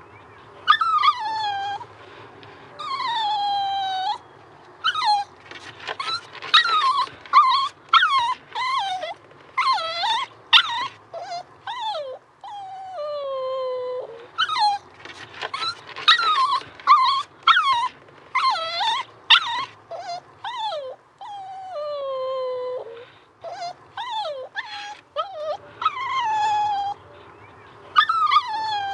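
Dogs whining: a long run of high, pleading whines that mostly slide down in pitch. Some are drawn out over about a second, and others come in short, quick yelps in between.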